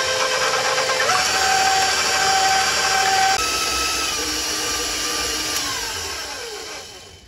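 Electric stand mixer running on medium speed, its flat beater churning a wet batter in a steel bowl, with a steady motor whine. The whine steps up in pitch about a second in, then falls in pitch and fades near the end as the motor slows down.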